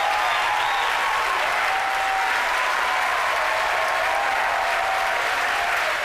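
Crowd applauding steadily, with a few voices calling out: the reaction to a Falcon 9's main engine cutoff, stage separation and second-stage engine ignition.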